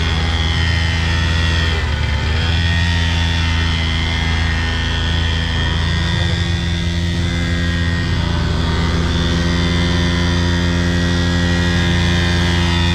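Mini pocket dirt bike's 49cc air-cooled single-cylinder two-stroke engine running steadily as it is ridden. Its pitch dips briefly and comes back up about two seconds in.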